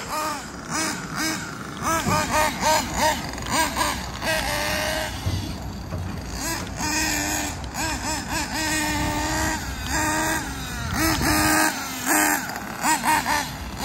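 Kyosho Inferno NEO ST 3.0 RC truggy's nitro engine revving up and down in repeated quick blips, its high whine rising and falling over and over.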